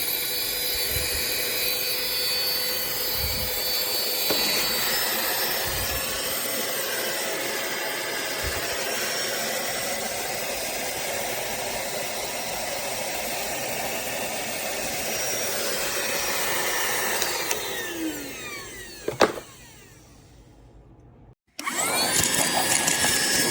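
Cordless handheld car vacuum running with a steady motor whine that shifts slightly in pitch a few seconds in. Near the end it is switched off: the whine falls as the motor spins down, there is a click, and it goes nearly quiet. A new whirring starts abruptly just before the end.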